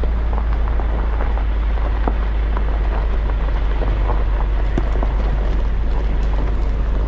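Suzuki Vitara driving along a gravel road: a steady low wind rumble on the microphone over the car's running and tyre noise, with scattered small ticks of loose stones.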